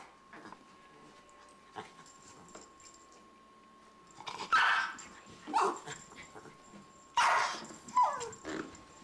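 A dog barking and yipping in about five short outbursts, starting about four seconds in. The last couple trail off into a falling whine.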